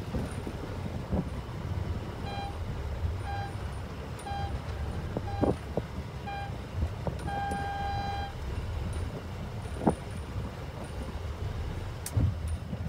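Electronic countdown beeper of a sailing race start: five short beeps about a second apart, then one long beep. Steady wind noise runs underneath, with a couple of sharp knocks, one about halfway through and a louder one near the end.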